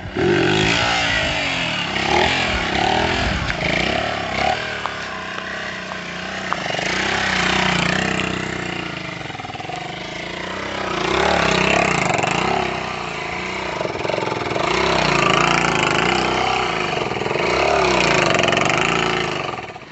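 Small motorcycle engine revved up and down again and again, its pitch rising and falling in several surges of throttle as the bike is lifted into wheelies.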